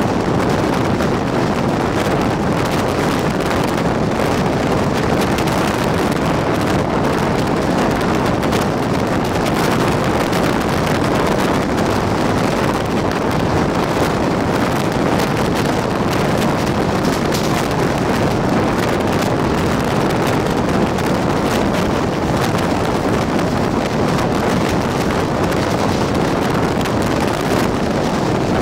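Jan Shatabdi Express passenger train running at speed, heard from a coach doorway: a loud, steady rush of train noise with wind blowing hard on the microphone.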